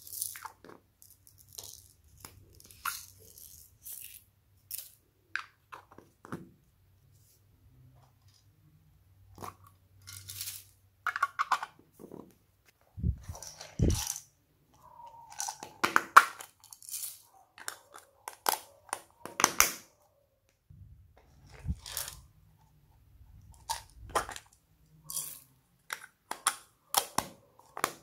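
Small plastic slime containers clicked open and tipped out, with foam beads and sequins rattling and pattering onto slime: a run of separate clicks, taps and short rattles, with two heavier knocks near the middle.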